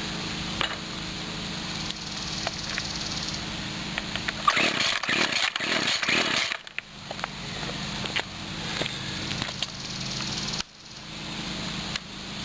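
A 1997 Husqvarna 24cc two-stroke string trimmer engine running at idle. About four and a half seconds in, it turns louder and ragged for around two seconds, then settles back to idle, and it dips suddenly near the end. This engine bogs when the throttle is opened, which the owner traces to a bad diaphragm.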